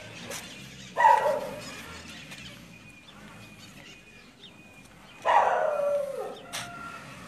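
A dog barking twice: one short bark about a second in, and a longer bark that falls in pitch about five seconds in.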